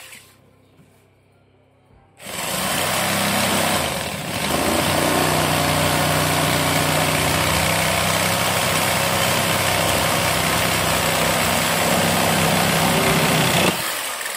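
Benz BZ8089 400-watt jigsaw starting about two seconds in and sawing through a pine board at its speed 4 setting, running steadily with a brief dip about four seconds in, then stopping near the end.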